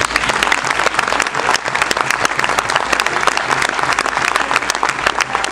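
Theatre audience applauding at the end of a play: dense, steady clapping from many hands.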